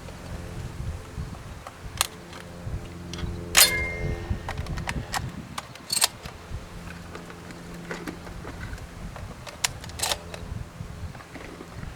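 Shotgun fired at doves, two sharp shots about two and a half seconds apart, the first the louder. A steady low drone runs underneath.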